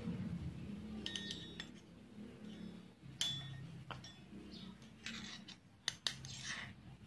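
Scattered light taps and clinks from a miniature steel wok being handled with its lid and a small spatula, a couple of the taps ringing briefly with a thin metallic tone.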